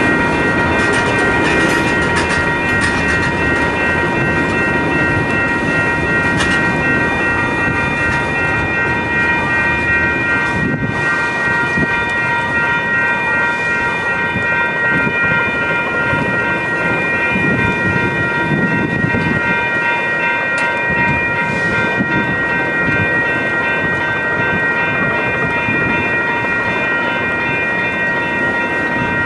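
A maintenance-of-way train of flatcars rolling over a grade crossing, its wheels rumbling and clicking on the rails, with a few sharp clicks in the first seconds. The crossing bell rings steadily over it.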